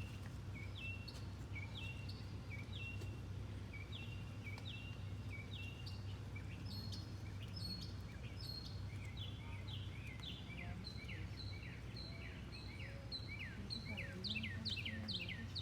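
Birds calling over a steady low hum: short notes repeated about once a second, then a quicker run of sharply falling notes near the end.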